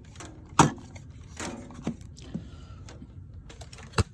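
Handling noise of computer peripherals being placed on a table: a few separate knocks and clicks, the loudest about half a second in, with a brief scrape about one and a half seconds in.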